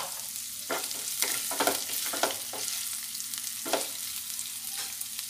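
Hot oil sizzling steadily in a nonstick frying pan holding a tempering of mustard seeds, cumin, fennel, green chilli, curry leaves and ginger paste. A flat spatula scrapes and stirs across the pan in several short strokes.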